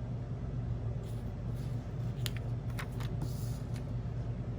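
Paper stickers and planner pages handled: a few light clicks and a short rustle two to four seconds in, over a steady low hum.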